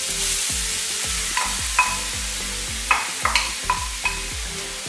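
Freshly grated carrot sizzling in hot ghee in a frying pan, a steady frying hiss right after the carrot goes in.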